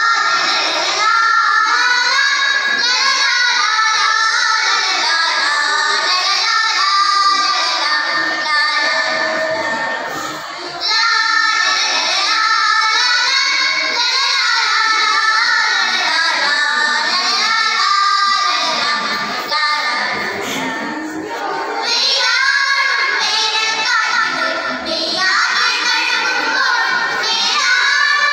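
A group of schoolgirls singing a Malayalam group song (sangha ganam) together into microphones, with brief breaks between phrases about ten and twenty seconds in.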